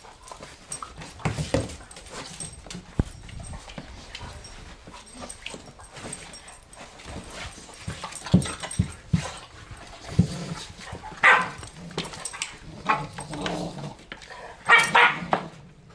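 Two German shorthaired pointers, a puppy and an adult, play-fighting: irregular bursts of barks and yips with whimpers between them, the loudest outbursts in the second half.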